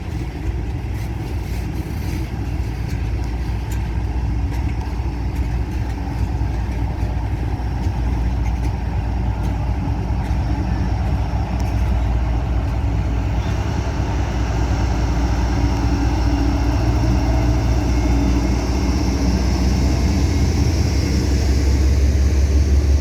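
Long freight train rolling slowly past at about 10 mph, with a steady low rumble and a low diesel hum that grows gradually louder toward the end.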